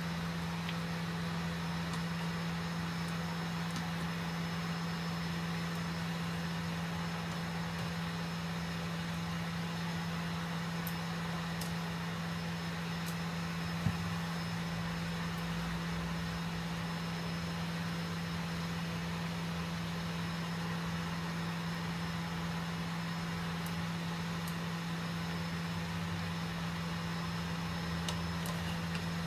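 Steady low electric hum of a cooktop with an even hiss of water simmering in a pan as greens blanch, and a single sharp tap about halfway through.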